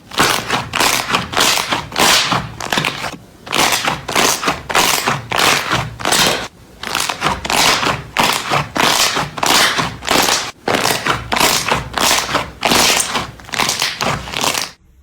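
Slime being squeezed and pressed by hand: a run of loud, noisy squishing strokes about two a second, with a few short pauses, cutting off abruptly just before the end.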